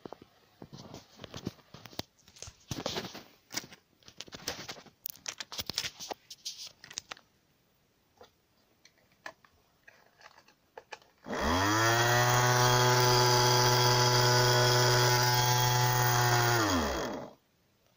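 Crackling and clicking from a foil-wrapped model car being handled. Then, about eleven seconds in, a small electric motor in the car spins up, runs with a steady whining hum for about six seconds, and spins down.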